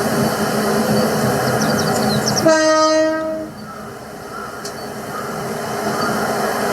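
A train horn sounds one steady blast of about a second, midway through. Before it, a passing train's steady running rumble stops abruptly just as the horn starts.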